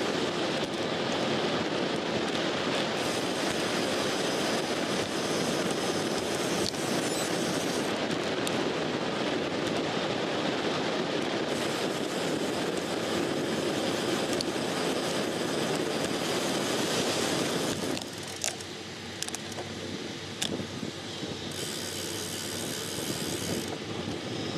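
Wind rushing over a handlebar-mounted camera microphone, mixed with tyre noise, as a road bike rolls along. The rush drops noticeably about eighteen seconds in, and a few sharp knocks follow.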